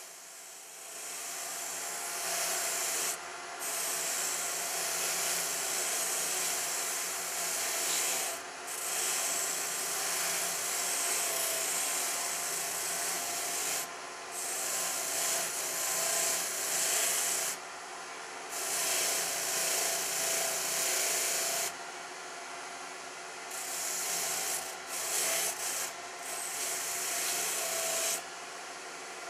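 Oil-finished wooden handle being polished against a spinning buffing wheel on a lathe: a steady hissing rub that breaks off briefly every few seconds as the handle is lifted and turned, over the lathe's steady motor hum.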